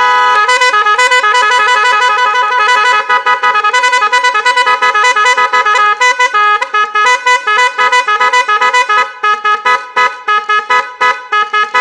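Oval electronic melody horn ('còi ngân') sounding a deafening, fast tune: a held multi-note chord at first, then quickly stepping electronic notes that turn into short choppy beeps over the second half.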